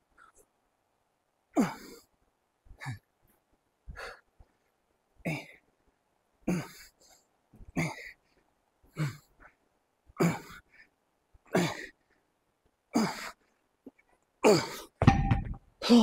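A man's forceful grunting exhalations during dumbbell sumo squats, one with each rep, about every 1.3 seconds. Near the end comes a heavy low thud as the dumbbell is set down on the rubber gym floor.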